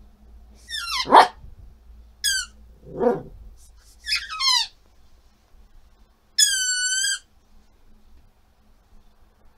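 A yellow rubber squeaky ball is squeezed repeatedly at a dog's face: several short high squeaks, some falling in pitch, then one longer steady squeak about six and a half seconds in. A short, lower-pitched sound comes about three seconds in.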